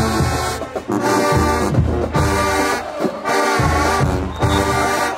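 Marching band brass playing a loud tune of held, punchy chords over a low bass line.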